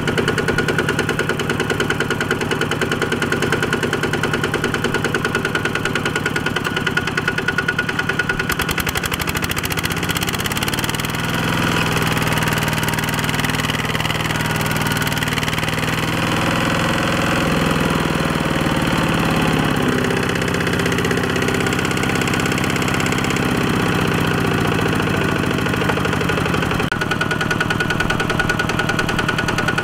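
The single-cylinder diesel engine of a two-wheel walking tractor chugging with a rapid, even firing beat. About eight seconds in, the engine note changes and its pitch rises and falls as the tractor works its loaded trailer through deep mud, then it settles back to the steady chug near the end.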